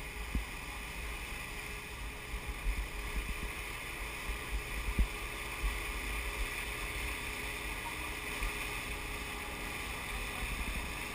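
Wind rushing over a camera on a parasail harness, with irregular low buffeting gusts and a steady hiss of the tow boat's run and wake beneath.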